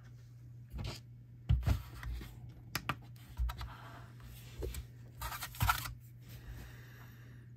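Handling noise on a workbench: several light knocks and rustling scrapes as a plastic digital kitchen scale is set down and shifted on a cutting mat, over a steady low hum.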